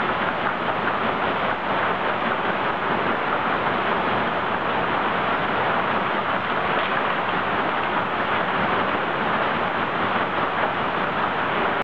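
Lumber lug loader and chain transfer conveyors running, giving a steady, even mechanical noise as boards are carried along and loaded one at a time.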